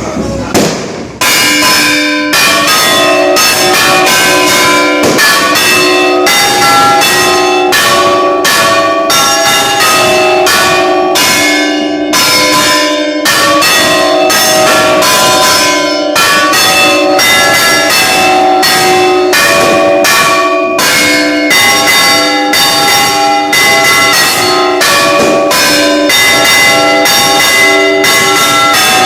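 Church bells ringing a continuous peal: struck strokes about one or two a second, several bells of different pitch sounding in turn, each stroke ringing on into the next. The peal starts about a second in.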